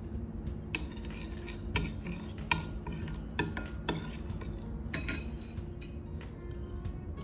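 Metal spoon stirring an oil-and-spice marinade in a ceramic bowl, with repeated sharp clinks of the spoon against the bowl.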